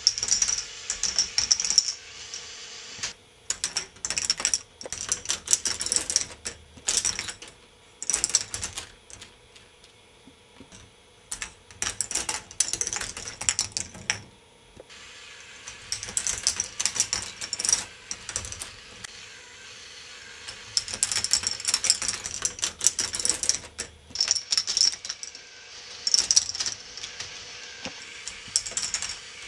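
Plastic balls clicking and rattling along the tracks of a K'nex ball machine, in bursts of rapid clatter that come and go, with a couple of quieter gaps. A steady faint hum runs underneath.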